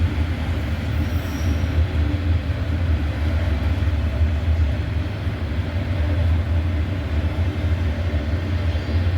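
Cars of a long intermodal freight train rolling past on the rails, a steady, unbroken rumble of wheels and rail noise.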